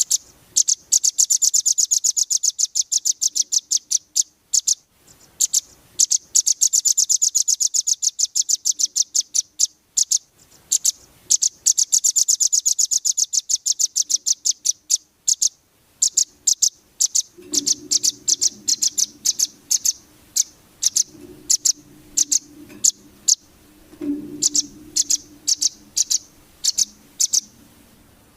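Velvet-fronted nuthatch (rambatan) calling in rapid runs of high, sharp chip notes. Long fast rattling series come first, then shorter, more widely spaced notes from about halfway on. A faint low hum joins about two-thirds of the way in.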